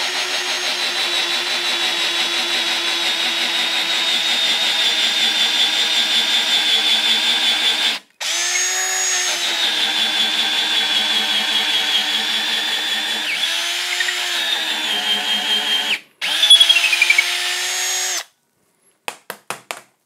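Drill boring a 1/2-inch hole deep into the end grain of a wooden 4x4 block: the motor runs steadily with a high whine, stops briefly twice and restarts, and its speed sags now and then under load. The drilling stops about two seconds before the end, followed by a few light knocks.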